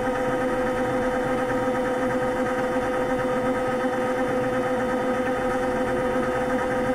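Electric vibration massage machine running steadily with the patient's feet on it: a constant motor hum with one strong, steady tone and its overtones.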